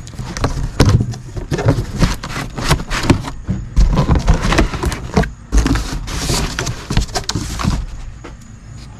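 Cardboard box and packing being handled: irregular rustling, crackling and scraping, with a couple of heavy thumps, as a portable air compressor is worked out of its carton.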